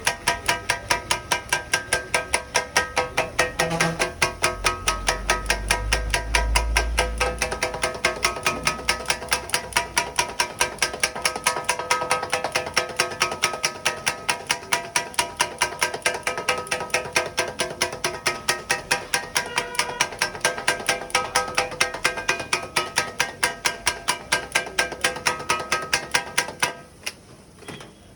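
Two flat metal spatulas chopping kothu parotta on an iron griddle, a fast steady clanging of about three strikes a second with ringing metal tones. It stops about 27 seconds in.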